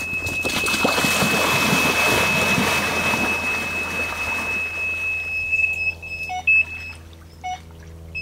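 A carp bite alarm holding one continuous high tone, the sign of a fish taking line on a run, over loud splashing as the angler wades out through the water to the rod. The tone stops about six seconds in.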